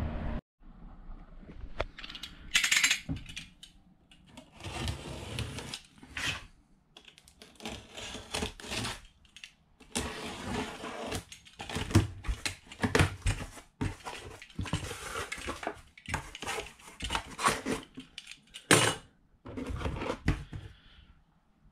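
Metal hand tools clinking and clattering in irregular short bursts with pauses between them, with a few sharper knocks.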